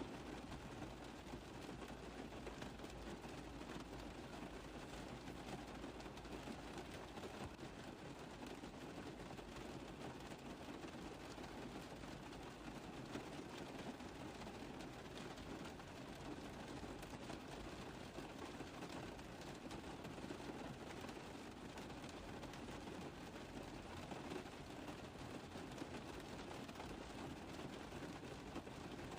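Rain tapping on a car roof: a steady, dense patter of drops with no letup.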